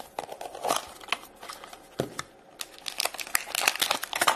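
A plastic toy blind-box cube being opened, with scattered clicks and taps, then a shiny orange wrapper crinkling densely in the fingers from about two and a half seconds in.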